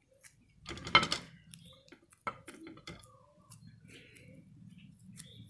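Hands pressing and patting sticky rice onto a wooden paddle-stick over a plate, with light handling noise and a few knocks and clinks against the plate, the loudest about a second in and another just after two seconds.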